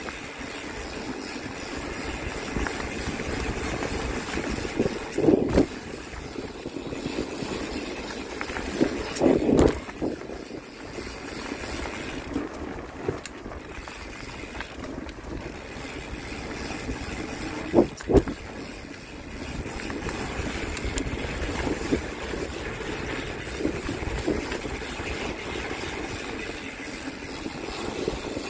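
A vehicle engine running steadily, with brief louder surges about five, nine and eighteen seconds in.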